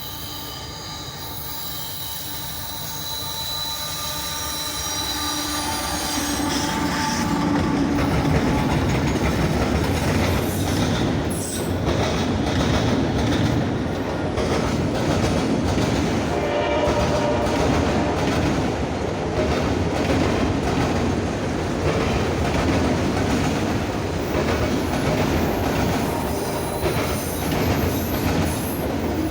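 Norfolk Southern freight train approaching and passing close by. Its horn holds steady tones for the first six seconds as the sound builds. The train then rolls past loudly, with rail clatter and some wheel squeal.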